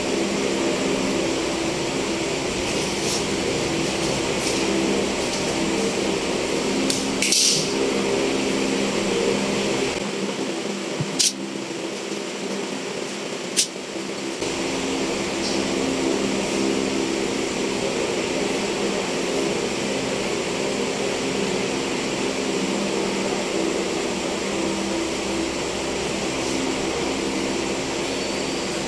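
A steady machine-like hum, with a few short clicks about 7, 11 and 14 seconds in.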